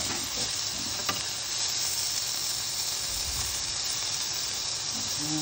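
Marinated meat sizzling on a hot grill grate, a steady high hiss, with a single light click about a second in.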